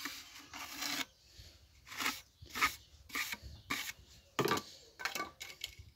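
Steel mason's trowel scraping along the rim of a freshly packed, damp sand-and-cement mortar pot, shaping the edge. One longer scrape in the first second, then about seven short strokes a little more than half a second apart.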